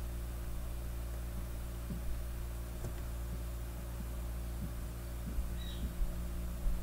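Steady low electrical hum with a few faint soft bumps scattered through it.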